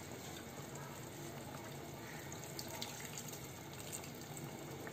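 Thin, watery gravy of a potato, pointed gourd and paneer curry simmering in a kadhai: a steady low hiss, with a few light ticks.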